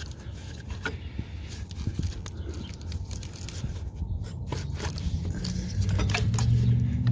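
Scattered clicks, knocks and scrapes of a power steering pump and its hoses being shifted and worked loose by hand in the engine bay. A low steady hum rises in near the end.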